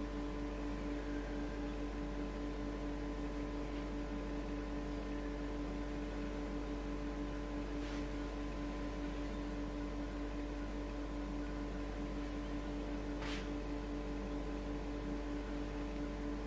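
A steady electrical hum of several fixed tones that does not change, with two faint soft clicks, one about halfway through and one near the end.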